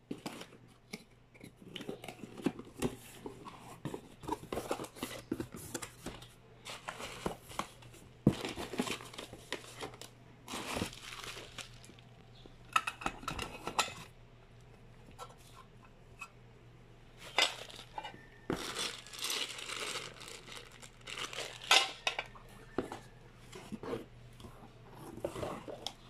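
Cardboard box being opened and unpacked by hand: flaps scraping and rustling, plastic wrapping crinkling, and irregular knocks of metal and plastic parts against the cardboard. A faint steady low hum lies underneath.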